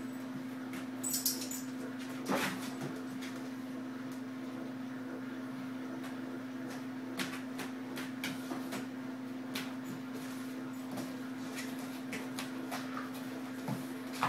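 An English bulldog puppy and a Briard scuffling in play, their claws and paws clicking and knocking irregularly on a hard kitchen floor. A few louder knocks come about a second in, about two seconds in and near the end, over a steady low hum.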